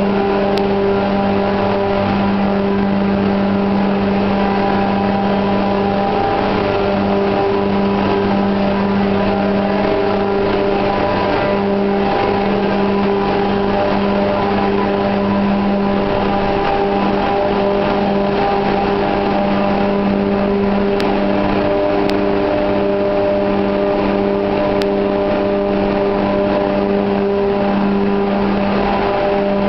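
Loud, unbroken din of a ferry's engine room with its marine diesel engines running: a constant hum with several steady tones over a thick wash of machinery noise.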